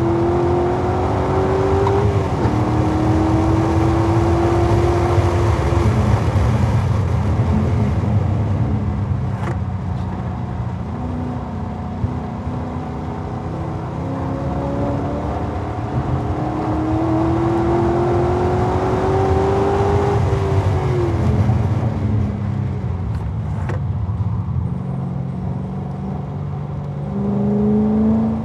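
2011 Corvette Z06's 7.0-litre LS7 V8 running hard at track speed: revs climb, drop at an upshift about two seconds in and climb again, then fall as it backs off. It pulls up through the revs again from about fourteen to twenty seconds, falls away after that, and starts rising once more near the end.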